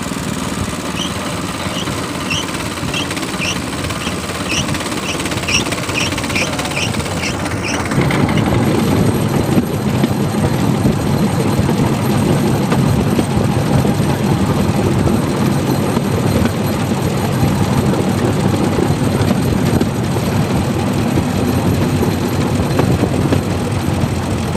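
Bamboo train (norry) running along the rails: its small engine and the clatter of its wheels over the track. It turns louder and rougher about eight seconds in. A run of short, high chirps, about two a second, sounds over it during the first several seconds.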